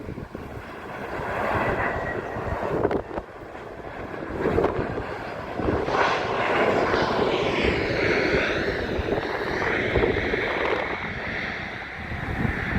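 Jet airliner passing close by, its engines rising in level and then a whine that falls in pitch from about six seconds in, with wind buffeting the microphone.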